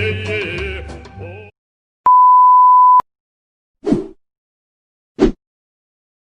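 The end of a music clip fading out, then a single steady one-pitch beep about a second long, the 1 kHz tone used as a censor bleep. Two short, sudden sound-effect hits follow a second or so apart.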